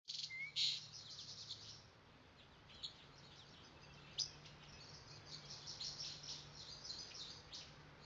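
Faint birdsong: small birds chirping and twittering in quick runs, over a low steady hum.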